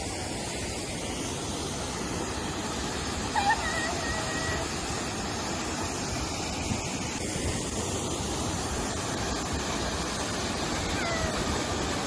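Waterfall pouring into a rock pool: a steady rush of water. A few short, high squeal-like calls rise over it about three and a half seconds in and again near the end.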